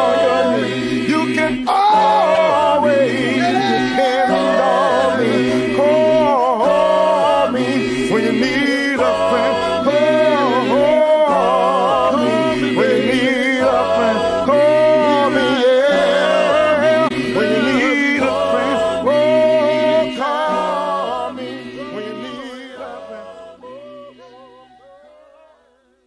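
A cappella vocal music: several voices singing over a repeating low bass part, fading out over the last few seconds to silence.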